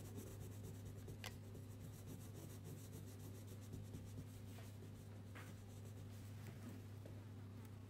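Faint scratching of a wax crayon rubbed back and forth on paper in quick strokes, with a couple of light ticks, over a steady low hum.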